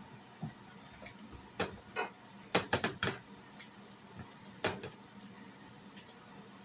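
Cooking utensils knocking and clicking against a nonstick frying pan on a glass-top stove: a series of short, sharp clicks, bunched together about two and a half to three seconds in.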